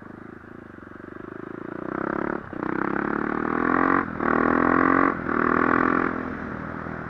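KTM 450 EXC's single-cylinder four-stroke engine, fitted with an aftermarket Akrapovič-copy exhaust, accelerating hard through the gears: the pitch climbs in runs broken by three short cuts at the upshifts, then the throttle eases off near the end.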